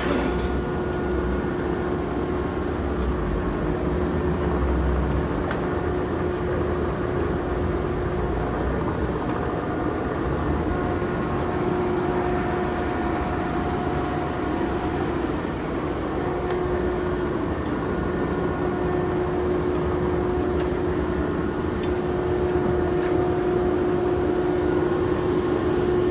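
Monarch engine lathe running under power: a steady mechanical running noise with a constant whining tone over it.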